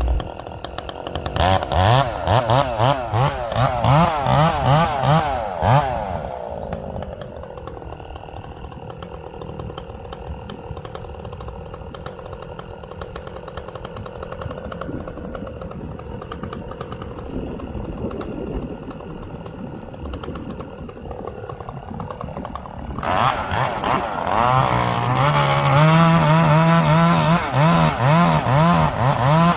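Two-stroke chainsaw running at full throttle with its pitch wavering, as when cutting into a tree trunk, for about six seconds. It then drops to a quieter, steady idle for a long stretch, and opens up again at full throttle about three-quarters of the way through.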